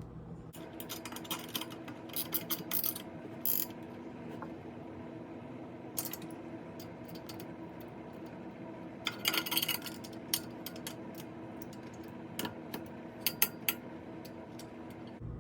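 Hand work on a reloading press and its strong mount: scattered metallic clicks and rattles of tools and parts, with two busier bursts of rattling, one near the start and one about nine seconds in. A steady low hum runs underneath.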